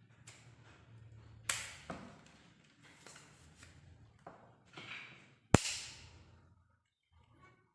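Handling noise from a camera tripod being set up: scattered rustles and knocks, with a few sharp clicks as parts snap or lock into place. The loudest is one very sharp click about five and a half seconds in.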